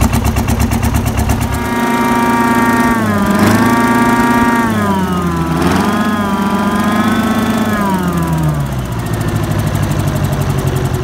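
Four-cylinder two-stroke Nissan UD diesel with a blower, running loudly on a stand. The revs come up about two seconds in, dip and recover twice, then drop back to a lower speed near the end, with a high whine rising and falling with the engine speed.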